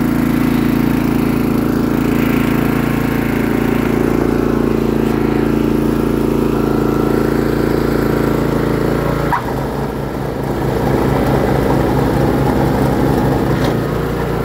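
Honda HS724 tracked snowblower's single-cylinder engine running steadily. About nine seconds in there is a click and the engine note changes, taking on an even pulsing beat.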